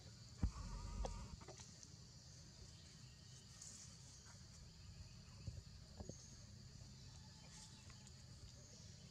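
Quiet rustling in branches, with a sharp thump about half a second in and a brief faint call just after it. A steady high hiss runs underneath, and a few soft clicks come near six seconds.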